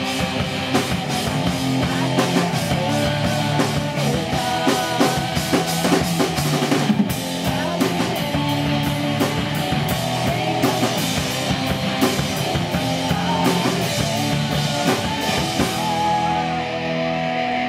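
Live rock band playing loud, with distorted electric guitars over a pounding drum kit. The cymbal hiss thins out near the end as the song winds down.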